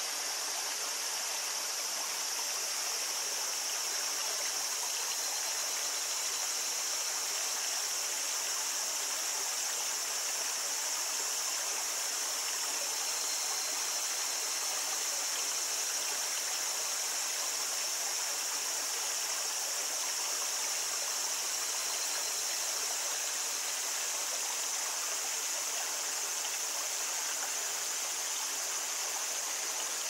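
A small stream babbling steadily, with a steady high-pitched chorus of cicadas over it.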